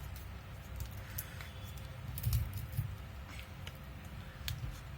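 Scattered light clicks and taps, like small tools and plastic phone parts being handled, over a low steady hum.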